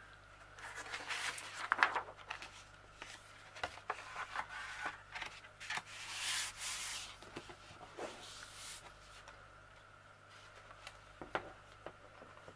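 Irregular rubbing and scraping of a foam-core-mounted canvas and picture frame being handled and fitted together, with a few sharp clicks and knocks.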